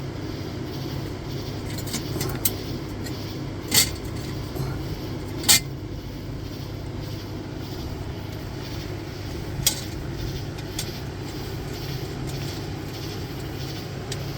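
A few sharp metal clinks and clicks, the loudest about four and five and a half seconds in and another near ten seconds, as hub assembly bolts are started by hand, over a steady low hum.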